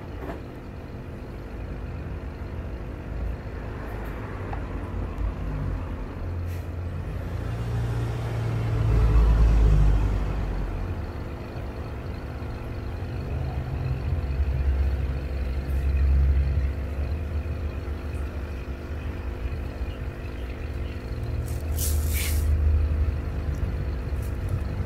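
A steady low mechanical hum with a deeper rumble that swells and fades, loudest about nine to ten seconds in, with a brief high hiss near the end.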